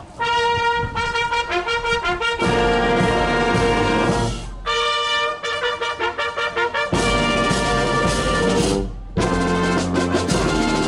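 Brass band music, with trumpets and trombones playing held and moving notes. The sound changes abruptly several times, about every two seconds.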